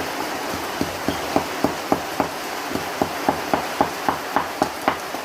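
Pestle pounding chili, sugar and salt in a mortar, about three to four strikes a second, grinding the seasoning to a paste.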